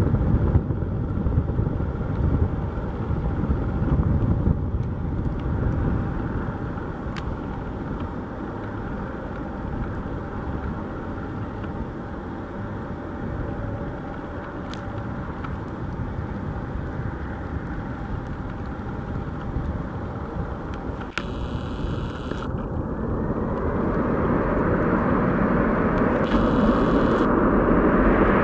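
Boeing 767-300 jet engines on landing: a steady rumble through the approach and touchdown, swelling louder over the last few seconds as reverse thrust spools up on the snowy rollout.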